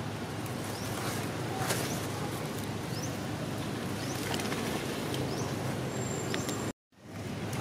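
Steady outdoor background noise with short, high, rising chirps repeating roughly once a second. The sound cuts out completely for a moment near the end.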